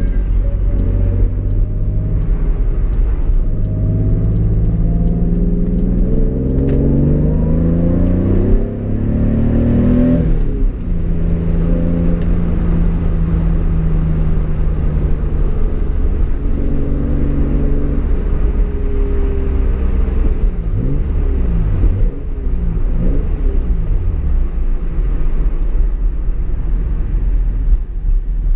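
Toyota Supra's inline-six engine heard from inside the cabin. It pulls up through the revs in one long rising climb for about ten seconds, then eases off and runs at a steady cruise under road noise, with a few shorter rises and falls in engine note later on.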